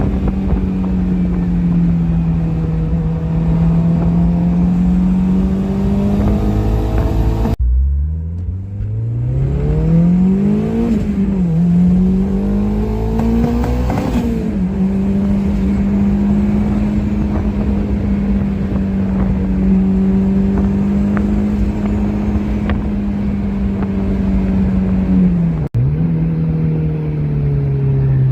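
Turbocharged Honda S2000's four-cylinder engine running under steady load. In the middle it accelerates hard: the pitch climbs, drops sharply at a gear change and climbs again before settling back to a steady note. The sound breaks off abruptly twice.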